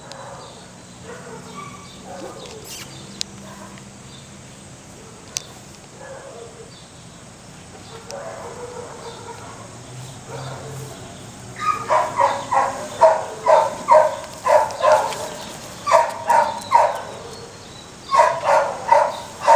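A dog barking in quick runs of several barks, about three or four a second, starting a little past halfway and coming in three bouts; before that only faint outdoor background.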